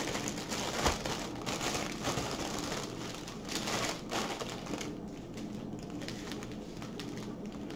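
Clear plastic bag crinkling as it is handled and opened, with the bagged packets of diamond-painting drills inside rustling against it. Busier for the first four seconds or so, then fainter.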